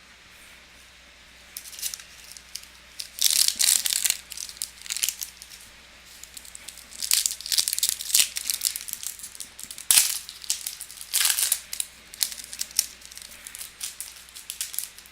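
Crinkling and rustling as baseball trading cards and a foil pack wrapper are handled, in irregular bursts with short sharp clicks.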